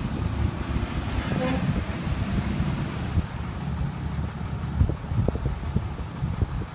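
Pickup truck engine running at low revs, a steady low rumble, with a few short knocks about five seconds in.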